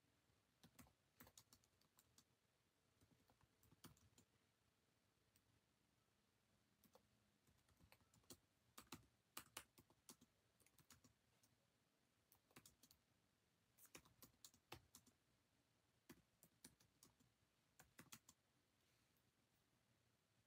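Faint, irregular clicks and taps, some coming in quick clusters.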